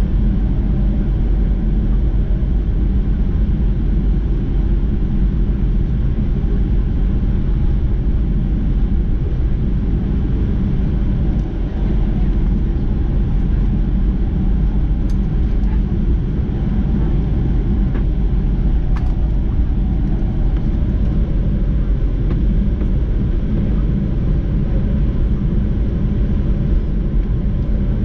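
Steady low rumble inside the cabin of a Boeing 737-800 taxiing after landing: its CFM56 engines at idle and the wheels rolling on the taxiway, heard through the fuselage.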